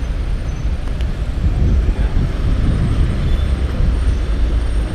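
Riding noise of a bicycle on a wet road in the rain: a steady, loud low rumble with a hiss above it.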